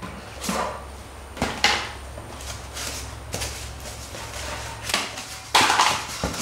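Short scraping and rustling handling noises, a few scattered through and a longer, louder one near the end, as a cardboard template is pulled off a steel truck frame. A steady low hum runs underneath.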